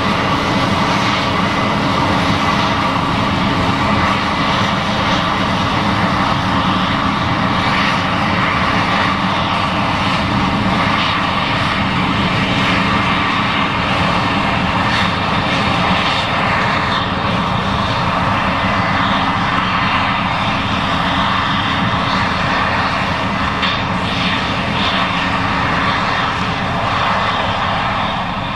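Case IH 7140 Axial-Flow combine running steadily while harvesting corn: a loud, continuous machine sound that holds at one level throughout.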